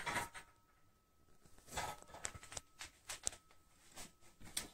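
A few light clicks and knocks of a rifle chassis and a metal gun vise being handled, coming after about a second of near quiet.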